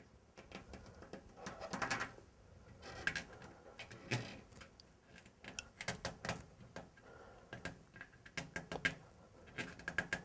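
Hands pressing and smoothing a stick-on tank pad onto a motorcycle fuel tank. Faint, irregular rubbing and rustling with scattered light clicks and taps.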